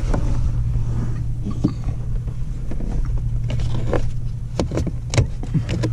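Trunk trim panel and padding being pushed back into place by hand, with a plastic push-pin clip pressed in: scattered short clicks and scuffs over a steady low hum.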